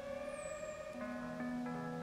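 Slow ambient music of sustained, layered tones, changing chord about a second in and again shortly after. A short, high, falling whistle sounds about half a second in.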